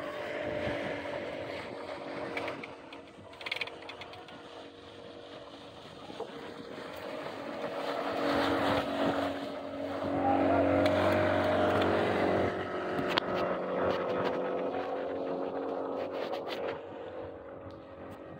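Engine of a motorized passenger launch running steadily as it passes close by, growing louder to a peak about ten seconds in and then easing off.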